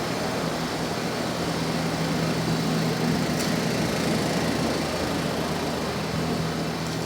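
Steady mechanical hum of a running machine with a constant low drone, a little louder through the middle.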